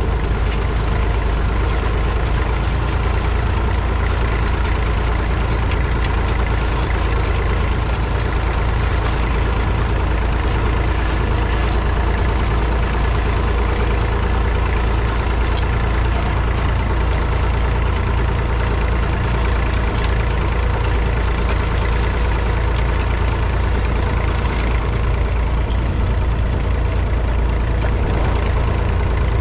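Massey Ferguson 250's 2.5-litre three-cylinder diesel engine running steadily under load, pulling a two-furrow mounted plough through the soil.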